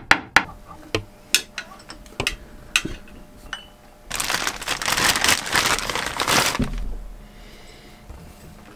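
Hand tools clicking and knocking on a marine diesel engine while the worn alternator belt is being changed. About four seconds in comes a louder scraping, rustling noise lasting roughly two and a half seconds.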